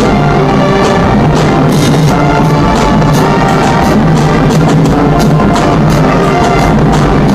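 A marching band playing at full volume: sousaphones and trumpets carrying sustained brass notes over snare drums, bass drums and crashing hand cymbals.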